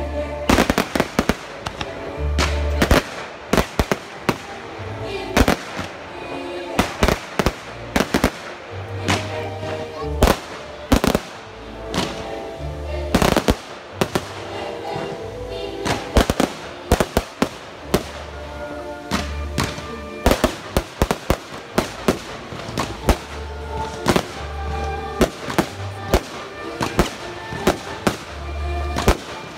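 Fireworks bursting in quick, irregular volleys of sharp bangs, over loud music from the show's soundtrack.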